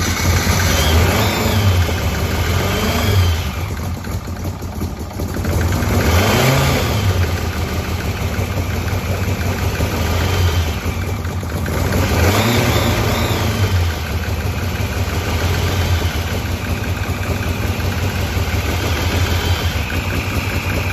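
Turbocharged Ford Pinto four-cylinder engine running through a new stainless steel exhaust just after being started, revved up a few times, about a second in, six seconds in and twelve seconds in, and settling back between the revs.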